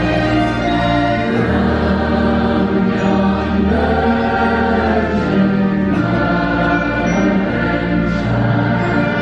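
Large choir singing Christmas music with an orchestra. It holds long chords that change every few seconds.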